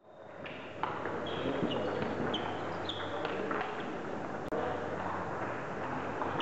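Table tennis play in a sports hall: scattered sharp clicks of the ball off bats and table, with short high squeaks of shoes on the hall floor, over steady hall noise.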